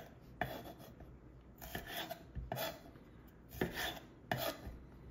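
Chef's knife slicing cherry tomatoes in half on a wooden cutting board: a quick series of short, faint cutting strokes, the blade scraping through and tapping the board.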